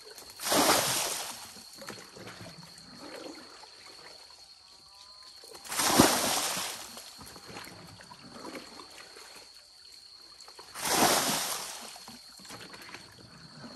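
Buckets of muddy water thrown out onto the ground while a spring hole is bailed dry: three loud splashes about five seconds apart, each fading over about a second. Quieter sloshing comes between them as the bucket is refilled in the hole.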